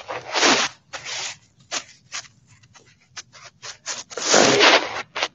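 Rustling, rubbing and scraping handling noise right against the microphone, in a string of short bursts with scattered clicks and a longer, louder scrape about four seconds in.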